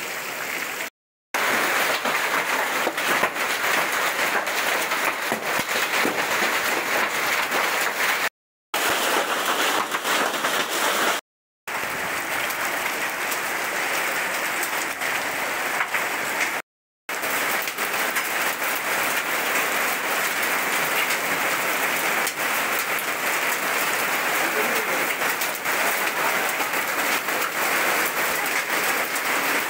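Heavy rain with hail pouring onto a paved road: a dense, steady hiss with many small ticks of impact. It drops out to silence briefly four times where the footage is cut.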